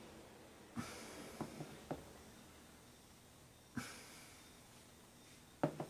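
Light clicks and knocks of small plastic food-container lids being handled and opened: a cluster of taps about a second in, another knock near four seconds, and the sharpest click near the end.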